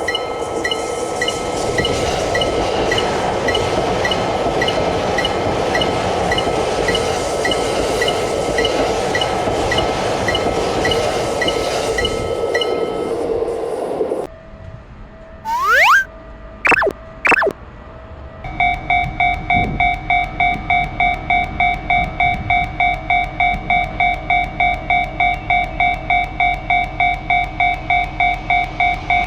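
A train runs past with a level-crossing bell ringing over it, and both stop about fourteen seconds in. After a short gap with a few quick rising sweeps, a Japanese level-crossing warning bell starts up and rings on in a rapid, even beat.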